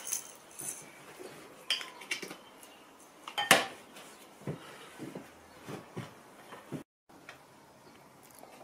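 Dishes and utensils clinking and knocking against a wooden cutting board: a handful of separate short knocks, the sharpest about three and a half seconds in. A brief dropout to dead silence near the end.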